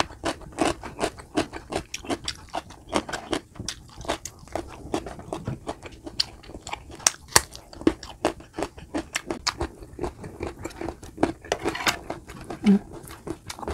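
Close-up chewing and biting of food, a rapid, irregular run of crunches and mouth clicks several times a second.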